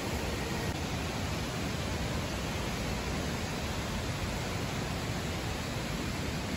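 Steady background noise, an even hiss with no distinct events.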